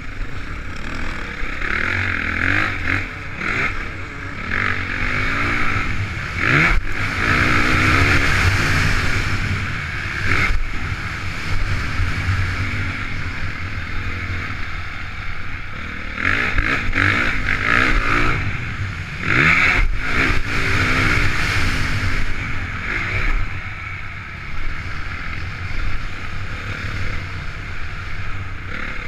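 Honda CRF450 single-cylinder four-stroke motocross engine being ridden hard, heard from an on-board camera: revs rise and fall through the gears, with sharp climbs about a quarter of the way in and again about two-thirds in.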